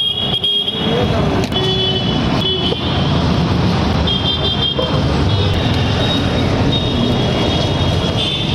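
Busy road traffic noise, with short high-pitched horn toots sounding on and off.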